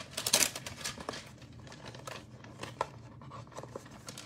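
Trading-card packaging crinkling and rustling as a pack is handled and opened, with a burst of crinkles in the first half second, then faint scattered rustles and clicks.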